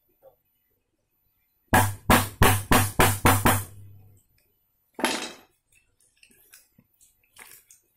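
A claw hammer strikes the handle of a 1-inch wood chisel, driving it into a block of hardwood. There are seven quick, sharp blows, about four a second, starting a little under two seconds in, then one more knock about five seconds in and a few faint clicks as the chisel is worked in the cut.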